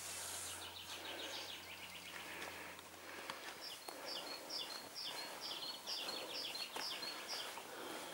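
Wild songbirds singing: a quick run of high chirps early on, then a high two-note phrase repeated over and over, about two to three times a second, for several seconds.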